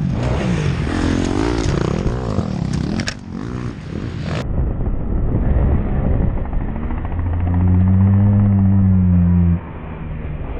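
Motocross bike engine revving unevenly, with a couple of sharp knocks, as the bike goes down in a crash. After a cut, a motocross engine accelerates hard along the dirt track, its note climbing and holding high, then the throttle shuts off near the end.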